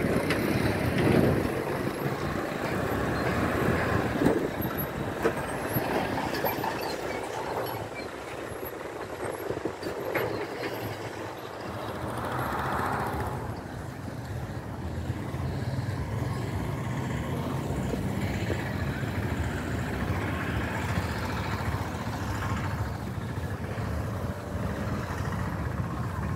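Road traffic: heavy trucks and other motor vehicles running, a steady mix of engine noise and tyre rumble. A low engine hum carries on through the latter half.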